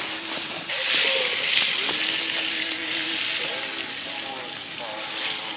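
Food sizzling as it fries, a steady crackling hiss that grows louder about a second in.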